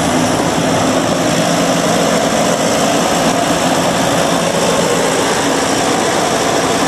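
Massey Ferguson 50 tractor engine running steadily, heard close to the tractor.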